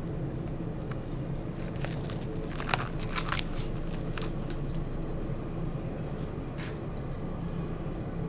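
Whole spice seeds crunching and crackling in scattered short clicks, the densest just after the second second, over a steady low hum.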